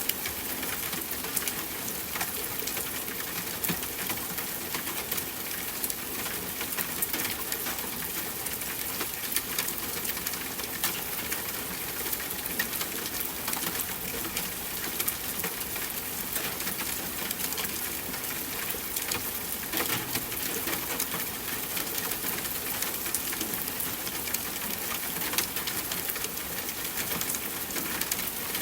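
Steady rain falling, a constant hiss dotted with many sharp drips and drop taps.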